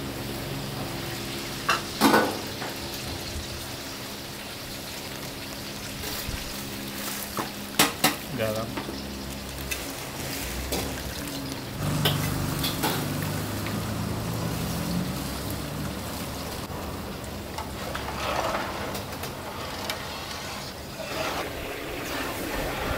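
Long steel ladle stirring a huge wok of curry gravy over a steady hiss of cooking, with a few sharp metal knocks of the ladle against the pan, the loudest about two and eight seconds in.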